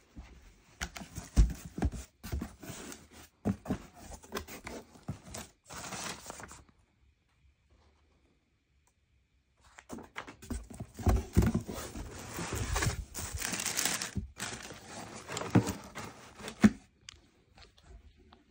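A cardboard shipping box being opened by hand, with tearing, scraping and crinkling of cardboard flaps and plastic packing wrap in irregular bursts. There is a pause of about three seconds near the middle.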